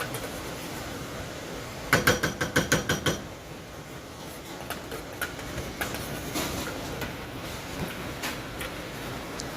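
A kitchen utensil knocking rapidly against a dish, about ten quick ringing clinks in a second, followed by scattered light clicks and scrapes.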